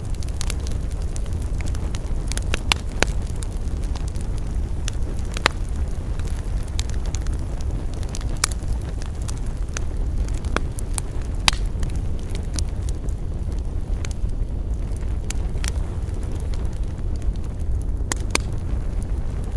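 Wood campfire crackling, with frequent small snaps and about half a dozen louder sharp pops, over a steady low rumble.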